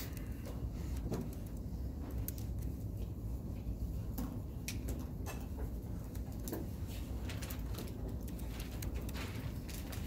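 Room tone: a steady low rumble with scattered faint clicks and small taps.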